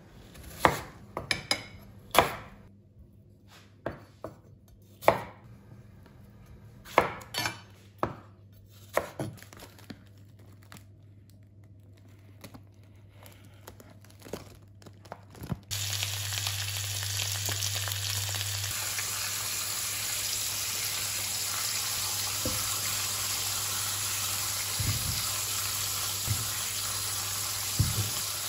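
Kitchen cooking sounds: sharp clinks and knocks of utensils and dishes for about the first half. Then, after a sudden cut, a steady hiss of cooking runs to the end, with a few light clicks near the end.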